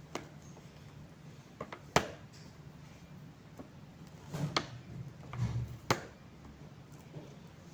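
Handling noises from a package and its contents being unboxed: a few sharp clicks and knocks, the loudest about two seconds in, with dull bumps a little after the middle.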